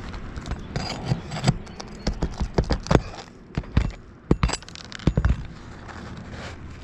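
Metal roof snake scraping and knocking under asphalt roof shingles as nails and staples are pried out and cleared. The knocks and scrapes come irregularly, several a second, in uneven clusters.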